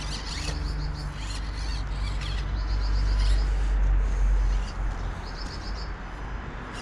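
A small bird chirping in short repeated trills, several times, over a steady low rumble.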